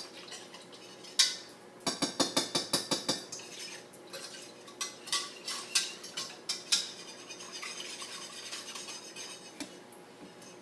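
A spoon stirring tomato paste and water in a pot, knocking and clinking against the pot. It gives one sharp knock about a second in, then a quick run of clinks, then scattered clinks that fade to quieter stirring.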